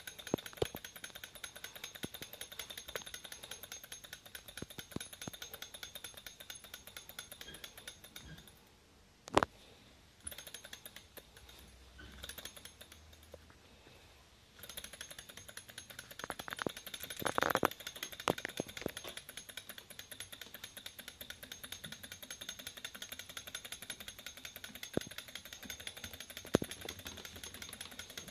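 Small twin-cylinder Stirling engine on a model tank running, a fast, even mechanical ticking from its crank and linkages. The ticking drops away for several seconds near the middle, with one sharp knock, then resumes with a cluster of louder clicks.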